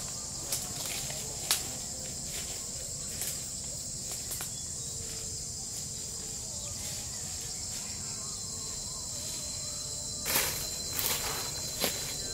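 Steady high-pitched insect chorus in tropical forest, with a few scattered crackles of footsteps on dry leaves and twigs and a cluster of louder crunching steps near the end.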